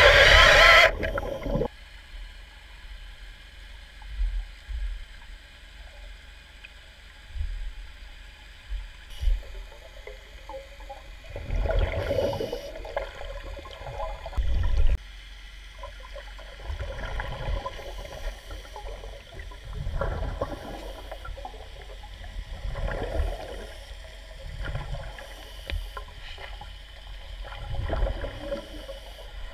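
Muffled underwater gurgling and rumbling that swells every two to three seconds, typical of a scuba diver's exhaled regulator bubbles heard through a camera housing. A loud noisy sound cuts off about a second and a half in.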